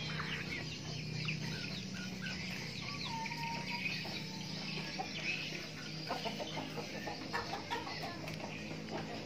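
Free-range chickens calling, with many short high calls scattered through, over a steady low hum.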